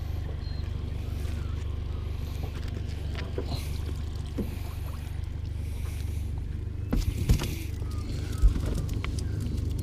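Steady low hum of a small boat's motor running, with a couple of sharp knocks about seven and eight and a half seconds in as a redclaw pot and its rope are hauled against the aluminium hull.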